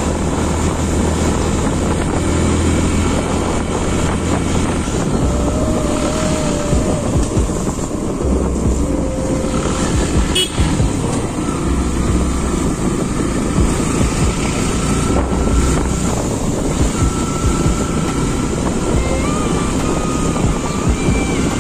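Motorcycle engine running under way, with wind rushing over the microphone as the bike rides along a street. The engine's low drone rises and falls with the throttle, and there is a single sharp knock about ten seconds in.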